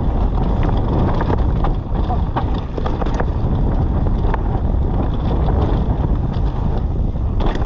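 Wind rushing over the microphone of a mountain bike descending a wet trail at speed, with tyres rolling and the bike clattering over rough ground, and several sharp knocks from impacts along the way.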